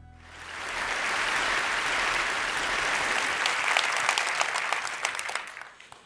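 Audience applauding. It swells up within the first second, holds steady, then thins out near the end until single claps stand out and it fades away.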